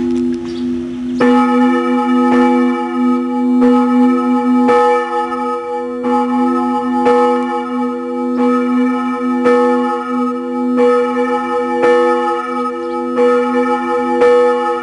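Church bell tolling, struck about every 1.2 seconds, its hum ringing on between strokes; the strokes start about a second in.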